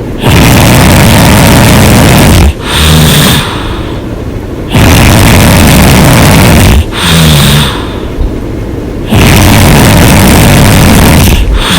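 A person snoring loud and hard: three long, rough snores of about two seconds each, repeating about every four and a half seconds, each followed by a shorter breath with a low hum in it.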